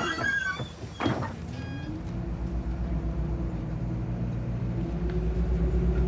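City bus engine pulling away: a low running note that slowly rises in pitch and grows louder, after a few sharp knocks in the first second.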